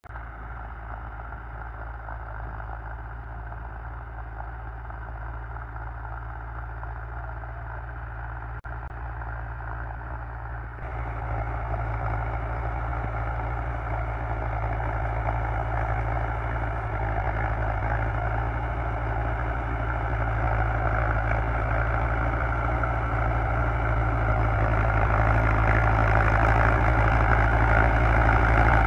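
Belarus MTZ-50 tractor's four-cylinder diesel engine running steadily under load as it pulls a rotavator through the soil, growing louder as it comes closer.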